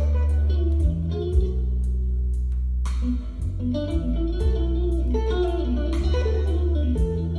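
Music with electric guitar, bass and a steady beat, played from a vinyl record on a MAG-LEV ML1 levitating turntable and heard through a pair of hi-fi speakers in the room.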